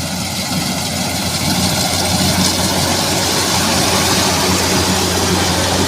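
Rice combine harvester's diesel engine running steadily with the clatter of the machine working, growing louder over the first couple of seconds and then holding.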